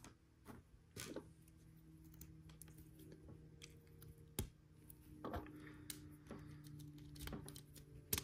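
Faint handling of plastic LEGO Technic pieces: soft rustling with a few sharp clicks as pins and connectors are pressed into an engine assembly.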